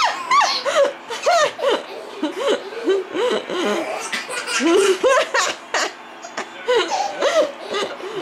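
A baby of about seven months laughing hard, a long string of short, high laughs one after another, with a brief break about six seconds in.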